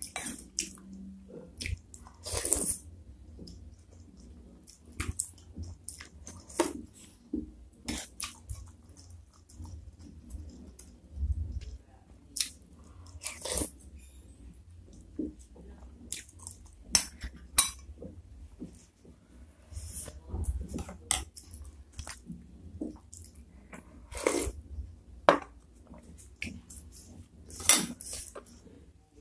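Close-miked eating sounds: a metal spoon clinking against a ceramic bowl, flat noodles and spicy broth slurped in, and wet chewing and lip smacks, coming in irregular short bursts.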